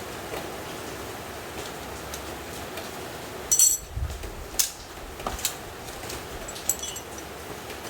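A few sharp metallic clinks and knocks of tools or metal parts being handled, the loudest a ringing clatter about halfway through with a dull thump right after, then several single clicks, over a steady background hiss.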